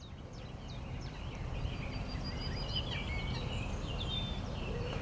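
Woodland birdsong: several small birds chirping and whistling short, quick notes over a steady low rumble, fading in at the start.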